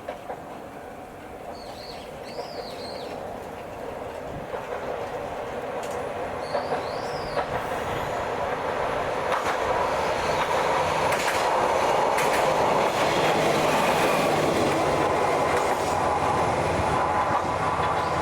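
KiHa 40 diesel railcar drawing near, growing steadily louder over about twelve seconds and then staying loud, its diesel engine running and its wheels clicking over the rail joints. Birds chirp a few times in the first half.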